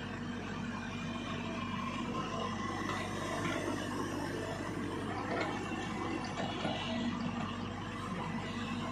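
JCB excavator's diesel engine running steadily with a constant low hum while it swings a loaded bucket over a dump truck.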